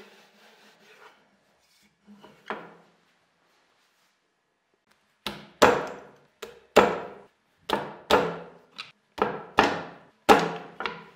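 Wooden knocks and snaps as a screwdriver breaks the waste out between saw kerfs in a pine board. About a dozen sharp knocks, mostly in pairs, start about five seconds in, after a softer knock and some handling noise.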